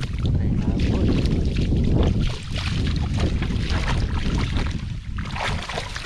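Wind rumbling on the microphone over water splashing and sloshing in shallow floodwater, with irregular short splashes throughout.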